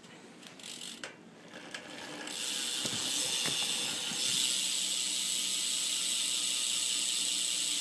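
BMX rear hub freewheeling as the rear wheel spins, its pawls clicking so fast they merge into a steady buzz. It starts about two seconds in and gets louder a couple of seconds later. The hub has been degreased and is not that loud.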